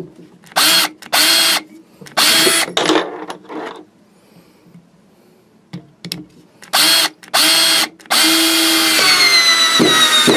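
Black & Decker LDX120C 20-volt cordless drill driving a 3.5-inch screw into wood in short trigger pulls: four brief bursts of motor whine, a pause of about two seconds, three more bursts, then a longer run from about eight seconds in as the screw is driven.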